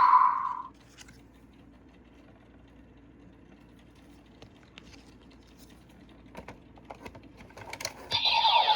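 Premium DX Memorial Gatchar Igniter transformation belt toy: its electronic sound cuts off just after the start, then come soft, scattered clicks of its plastic parts being handled and worked, and near the end its electronic sound effect and music start up loudly.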